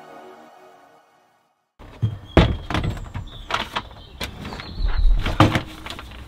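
Background music fading out, then a string of irregular knocks and thuds as a white plastic toilet is pushed and shuffled into position on a shower tray.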